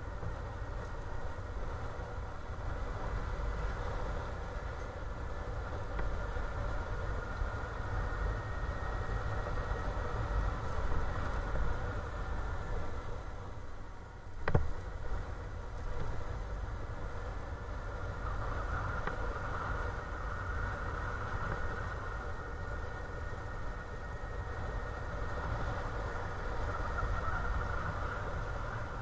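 Motorcycle engine running steadily at road speed, with low wind rumble on the microphone. A single sharp click comes about halfway through.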